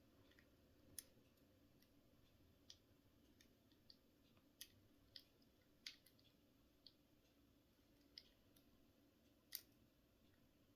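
Faint, sharp, irregular metal clicks of a lock pick working in the keyhole of TCH 840 handcuffs as the lock is picked, about a dozen in all, the loudest near the middle and near the end.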